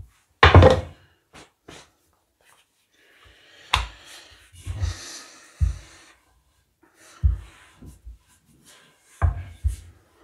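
Wooden rolling pin rolling out a flatbread dough on a floured countertop: irregular dull knocks as the pin is set down and pushed, with rubbing, rolling noise in between.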